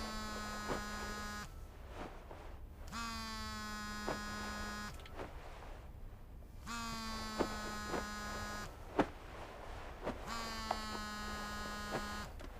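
Mobile phone ringing and vibrating: four rings of about two seconds each, evenly spaced. Each ring is a steady low buzz with a ringtone over it.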